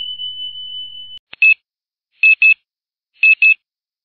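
Electronic beeps: one long steady beep lasting about a second, then a single short beep and two quick pairs of short beeps with silence between.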